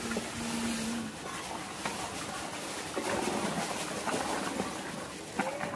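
Hot milk sloshing as a wooden paddle stirs it in a large aluminium pot, with a brief low steady hum in the first second.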